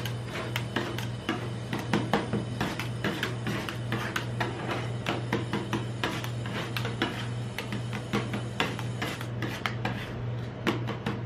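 Two metal spatulas chopping and scraping coconut ice cream on a steel cold plate: quick, irregular clacks and scrapes of metal on metal, over a steady low hum.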